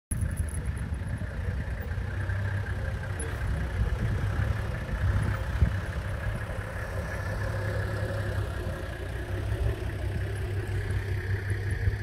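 Safari four-wheel-drive's engine running steadily at low speed, a low hum.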